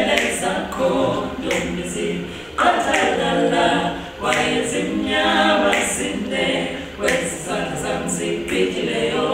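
A small vocal group singing a cappella in harmony, several voices together in short phrases with brief breaths between them.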